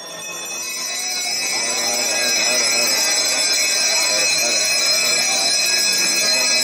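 Temple bells ringing continuously, growing louder over the first two seconds and then holding steady, with voices chanting beneath.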